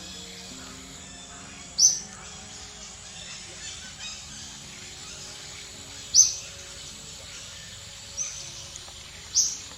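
A bird's short, high call, repeated four times a couple of seconds apart, over a steady background with faint low held tones.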